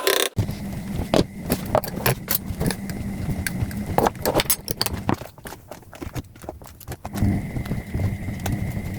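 Kitchen utensils clicking and knocking irregularly over a steady low hum, with the knocks densest about five to seven seconds in.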